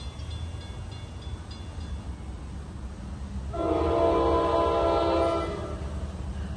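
Diesel passenger train's air horn sounding one chord of several notes together, about two seconds long, starting about three and a half seconds in, as the train approaches over a steady low rumble.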